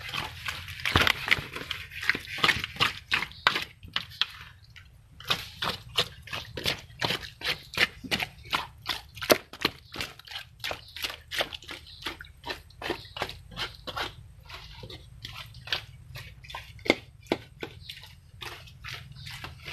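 Wet mud squelching and smacking as hands dig and scoop through it, a quick run of short wet clicks at about three or four a second, pausing briefly about four seconds in.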